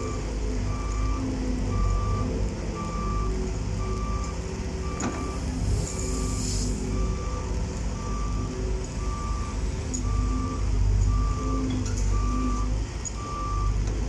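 Construction machine's backup alarm beeping steadily, a little faster than once a second, over the low running of a diesel excavator engine. A short hiss comes about six seconds in.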